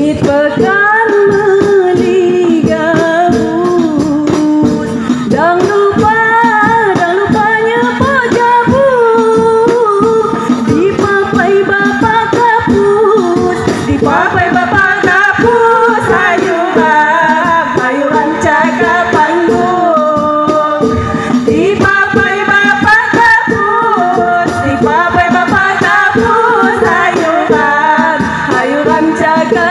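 Live singing accompanied by hand-played frame drums, a single melody carried continuously over dense, busy percussion.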